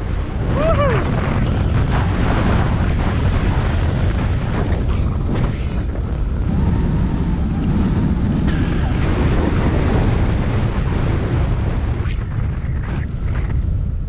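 Loud, steady wind rumble and buffeting on the microphone of a camera carried by a speed-wing pilot in flight, from fast airflow in strong wind. About a second in, a short falling tone sounds through it.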